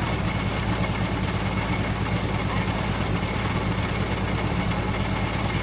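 Tractor engine with a front loader idling steadily.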